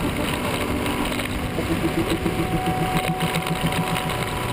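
Motorcycle engine running steadily at road speed with an even, pulsing throb, under rushing wind noise on the microphone.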